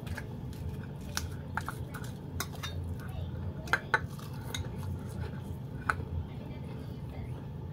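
Eating by hand from ceramic bowls: scattered light clicks and clinks of fingers and food against the bowls, with chewing, over a steady low hum. The sharpest are two clicks close together about four seconds in and one near six seconds.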